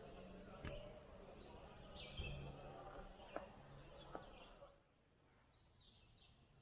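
Faint birds chirping over low background noise. There are three sharp clicks in the first four seconds, and a low hum stops about five seconds in.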